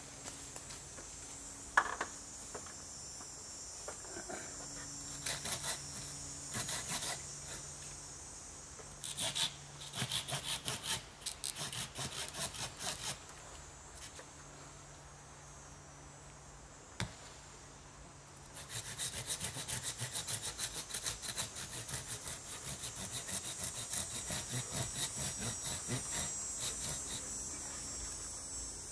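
Handsaw cutting through a standing tree trunk by hand, in short bouts of quick back-and-forth strokes, then a longer steady run of strokes in the last third. A steady high hum of insects runs underneath.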